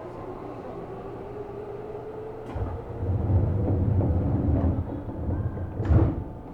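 Seibu New 2000 series electric train standing at a station, heard from inside the car: a steady hum, then from about two and a half seconds in a louder low rumble that ends with a heavy thump near the end.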